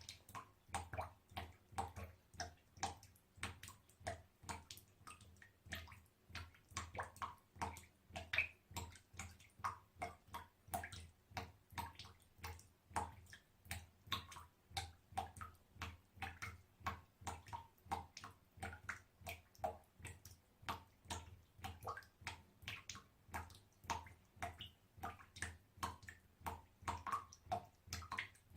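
Small water droplets falling one after another into water, a steady run of quick plinks, about three to four a second, each with a short ring of varying pitch.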